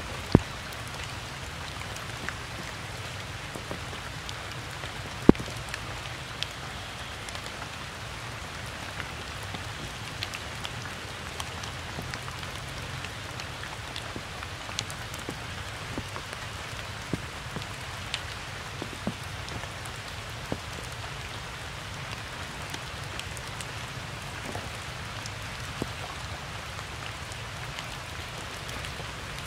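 Steady rain falling on wet ground, puddles and foliage, a constant hiss with scattered sharp drop ticks, two of them louder, about half a second and about five seconds in.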